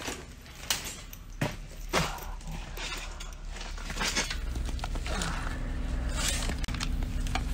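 Handling and movement noise from a handheld camera as a person crawls through a cramped space: a few sharp knocks in the first two seconds, then scattered rustling and scraping, with a low steady hum growing from about halfway.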